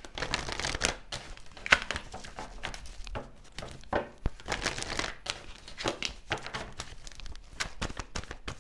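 A deck of tarot cards being shuffled by hand: a continuous run of irregular papery slaps and riffles as the cards are split and passed between the hands, with one sharper slap a little under two seconds in.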